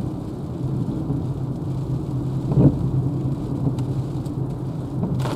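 Road noise inside the cabin of a Renault Zoé electric car driving in rain: a steady low rumble and hiss of tyres on the wet road, with a short knock about two and a half seconds in.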